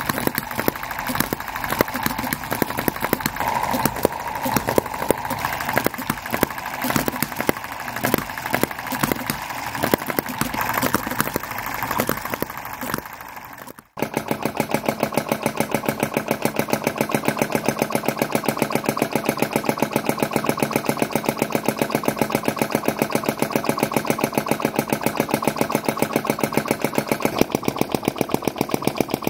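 A miniature brass spark-ignition model engine running with a rapid, uneven clatter. About halfway through it gives way to a flame-licker (flame-eater) model engine running fast with an even, rapid ticking.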